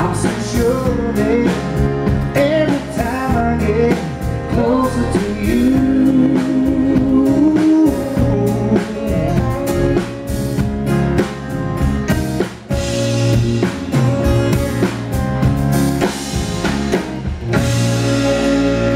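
Live band playing: a male singer with acoustic guitar, electric bass and drum kit. The singing stops about halfway through, and the band plays on to the end of the song.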